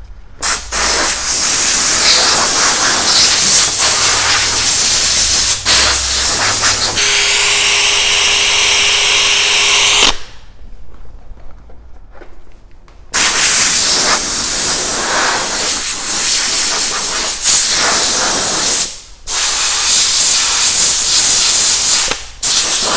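Loud stretches of hissing several seconds long, broken by short pauses: compressed air blowing sanding dust off a headlight lens, and a drill running an 800-grit sanding disc on the lens. For a few seconds in the middle a steady motor whine sounds over the hiss.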